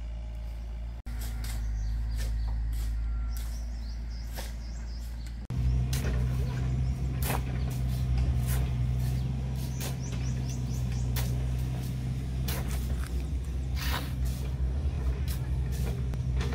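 A motor engine running steadily, louder after about five and a half seconds in, with repeated sharp scrapes of steel shovels digging into piles of sand and gravel.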